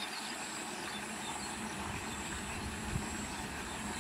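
Steady background rumble and hiss with a faint high steady hum, and a soft low thump about three seconds in.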